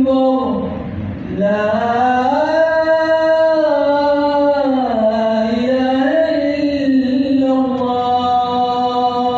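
A male muezzin chants the adhan, the Islamic call to prayer, unaccompanied. His voice holds long, ornamented notes that dip, climb and fall, then settles on a long steady note near the end.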